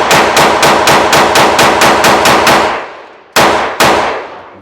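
Glock G44 .22 LR pistol fired in rapid semi-automatic succession, about five shots a second for two and a half seconds, then a short pause and two more shots. It is running with an aftermarket DPMS recoil spring in place of the factory spring, and it fires through without a stoppage.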